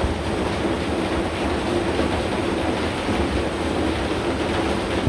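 Steady rainfall, an even hiss that does not let up.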